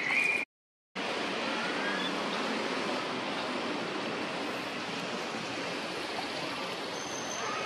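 Steady rushing outdoor background noise, like a distant stream or wind, with a brief cut to silence about half a second in.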